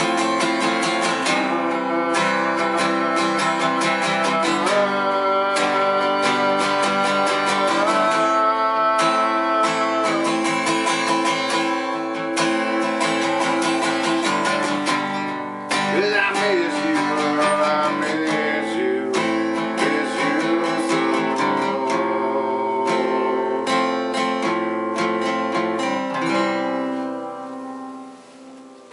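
Acoustic guitar strummed steadily, chords changing every second or two, then the playing stops and the last chord dies away near the end.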